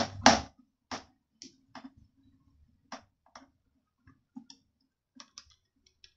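Screwdriver working small screws out of an Imusa air fryer's plastic base: a few louder knocks at first, then scattered light clicks of the tip and screws against the plastic.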